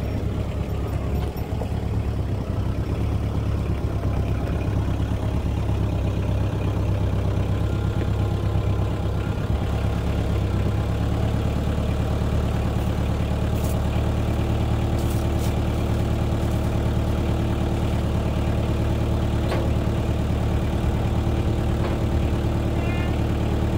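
Kubota tractor's diesel engine running, its note uneven for the first ten seconds or so and then settling into a steady idle.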